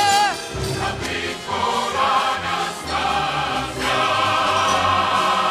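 Orchestral show tune with chorus: a held sung note ends just after the start, the orchestra plays on, and about four seconds in the full chorus comes in on a long held chord.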